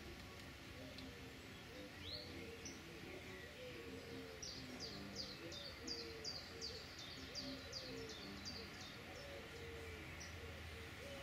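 Winter wrens at a nest box giving a quick series of high, thin chirps, about three a second, for some four seconds around the middle, with a few single chirps earlier on.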